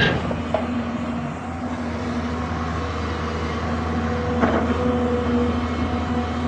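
Excavator's diesel engine running steadily, with a sharp knock at the start and another about four and a half seconds in.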